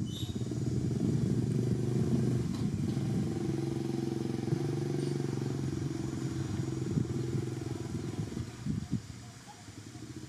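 A motor vehicle's engine running, a low steady hum that fades away near the end.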